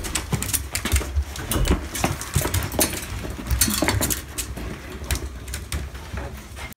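Small pet dogs pawing and jumping at the bars of a metal wire playpen: an irregular run of rattles and clinks from the wire panels.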